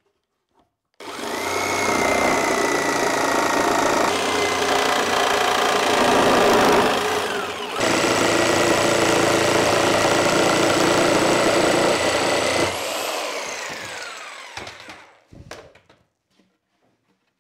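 Corded jigsaw cutting through a thick spalted maple board: a steady motor whine over the rasp of the reciprocating blade. It starts about a second in, drops off briefly and starts again around eight seconds, then winds down with a falling whine near the end, followed by a few light knocks.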